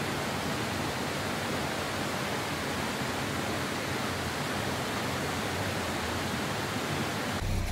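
Steady rushing of nearby running water, an even unchanging hiss that cuts off abruptly just before the end.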